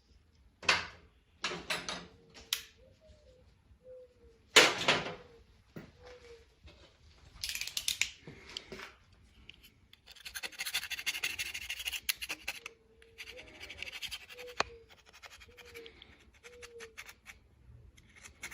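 Old gasket material being scraped off the exhaust mating surface of an outboard engine by hand: short, irregular scraping strokes with a few clicks, and a longer stretch of steady scraping about ten seconds in.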